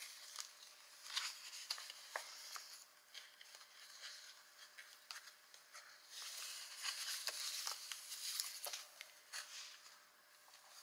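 Journal pages being handled and worked at a craft desk: soft paper rustling with a few light clicks and taps, and a longer stretch of rustling a little past halfway.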